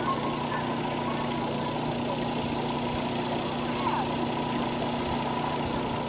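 A small engine running steadily at a constant speed, an even hum with no change in pitch or loudness.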